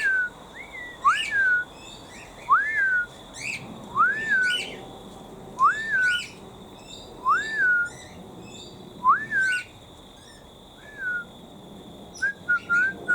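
Cockatiels calling: a clear whistle that rises and then falls, repeated about every second and a half, with fainter, higher chirping calls over it. Near the end the whistles give way to a quick run of short chirps.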